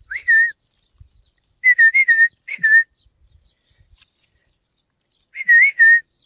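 A person whistling a few short phrases close to the microphone, each a quick upward slide into a wavering held note, with pauses between them.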